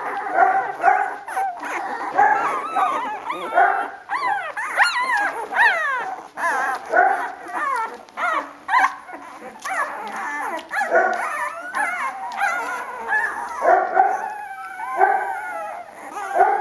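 Several puppies squeaking and whimpering together. Their high cries overlap and waver, with many gliding up and down in pitch, and they never stop.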